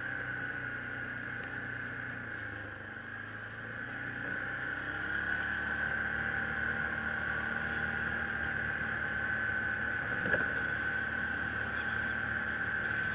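Yamaha Kodiak ATV running while being ridden, with a steady high whine over the engine; it eases off about three seconds in and picks up again from about four to five seconds in. A brief knock about ten seconds in.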